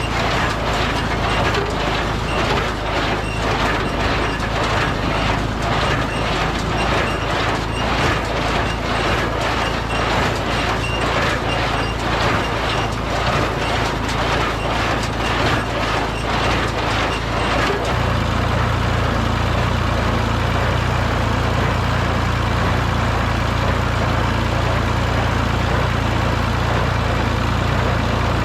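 New Holland 273 square baler working behind a Ford 3000 tractor: the plunger clatters in an even rhythm over the steady tractor engine. About two-thirds of the way through, the clattering stops and only the steady engine hum is left.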